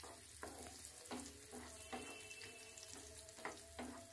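Wooden spatula stirring chopped dry fruits frying in ghee in a non-stick pan: faint scrapes and taps about twice a second over a light sizzle.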